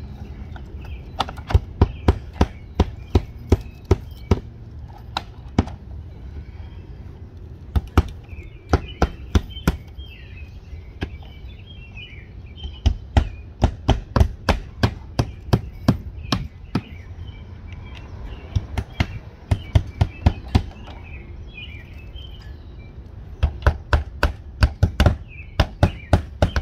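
Hammer nailing vinyl siding panels to a wooden wall. Runs of quick, sharp strikes at about two to three a second, with short pauses between the runs.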